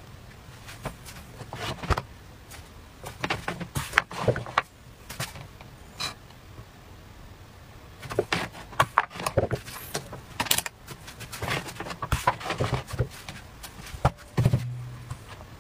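Irregular light clicks, taps and rustles of hands handling a plastic electric crepe maker and peeling thin batter wrappers off its hot plate onto a stack, with a brief low hum near the end.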